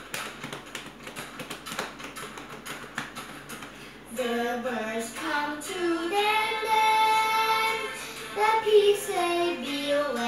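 Body percussion: a child's hand claps and slaps on her chest and shoulders, a rapid run of sharp hits for about four seconds. Then a girl's singing voice takes over, with a long held note in the middle.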